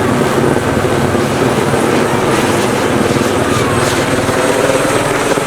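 Helicopter rotor running loud and steady, with a rapid chop.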